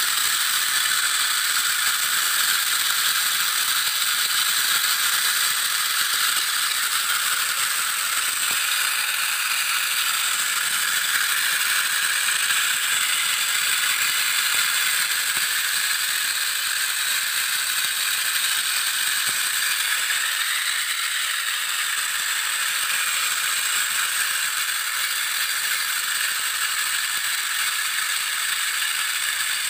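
Small electric motors and plastic gearboxes of toy military vehicles whirring and rattling steadily as the two toys pull against each other on a tow string.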